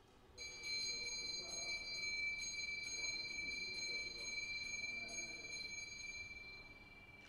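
Hindu puja hand bell (ghanta) rung continuously, its clapper striking about twice a second and keeping a bright, high ring going. It begins about half a second in and fades away near the end.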